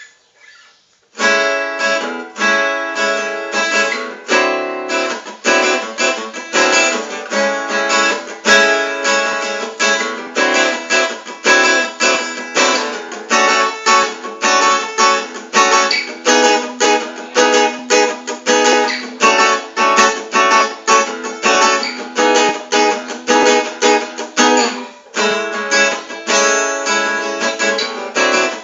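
Giannini GF-4 CEQ jumbo acoustic guitar strummed in steady rhythmic chords. The playing starts about a second in, after a short pause, and breaks off briefly near the end.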